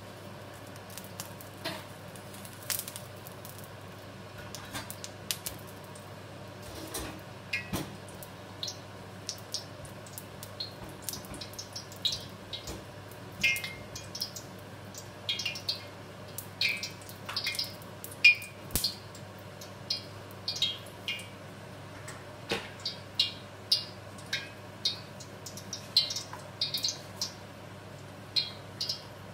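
Oil heating in a black steel wok over the burner, crackling and spitting in sharp short pops that come more and more often as it gets hotter, over a steady low hum.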